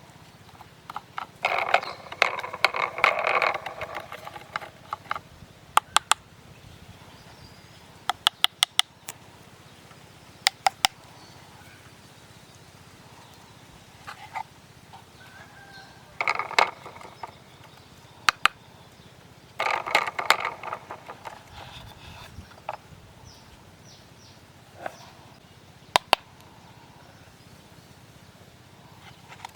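Handling of a die-cast toy dump truck and its packaging: three bursts of crinkling with sharp clicks, some single and some in quick groups, between them.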